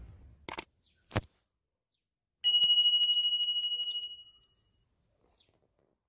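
Sound effects of an animated subscribe button: two quick clicks, then a bright bell ring with a fast tremble that fades out over about two seconds.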